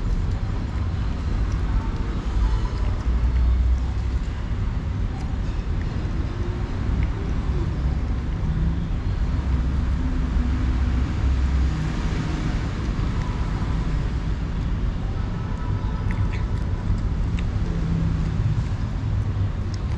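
Steady low rumble of street traffic. Over it come a few faint wet clicks of a cat chewing and lapping canned pâté cat food close by.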